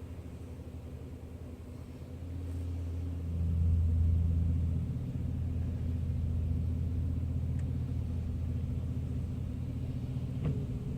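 A motor vehicle's engine rumbling low and steadily. It grows louder about two seconds in, peaks around four seconds, then holds steady.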